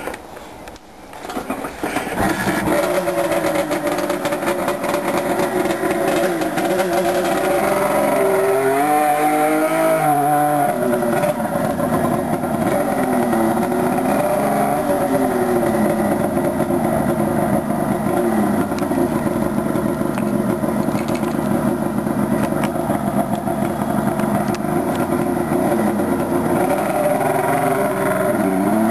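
Suzuki GT380M's two-stroke triple running through a 3-into-1 Piper exhaust. It gets louder about two seconds in, then holds a steady note, with the throttle blipped so the pitch swings up and down about eight to ten seconds in and again briefly a little later.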